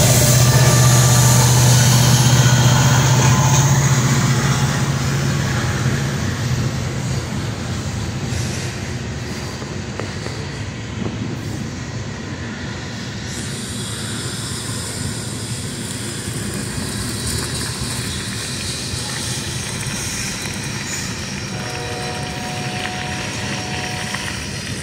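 Freight train passing close by: the low diesel drone of the Union Pacific and BNSF locomotives fades over the first several seconds, then the steady rolling noise of a long string of tank cars' wheels on the rails.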